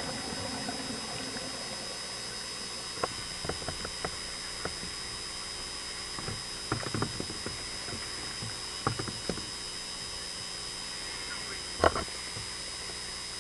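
Underwater recording from a scuba dive: a steady hiss with scattered sharp clicks and knocks, a few at a time, the loudest about twelve seconds in.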